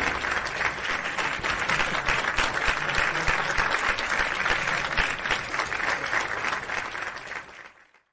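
Applause, a dense patter of many hands clapping, that fades away and stops near the end.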